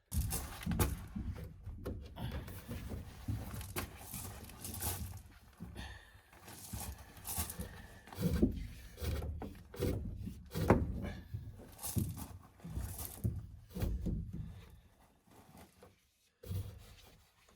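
A run of irregular knocks and thunks, mixed with sharper clicks and rustling, from hands-on work handling electrical cable and tools in wooden wall framing. It stops about a second before the end.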